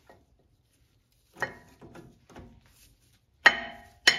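New front brake pads with their steel shims being slid into a caliper bracket's pad clips: a few light metal clicks, then two sharp clinks near the end that ring briefly.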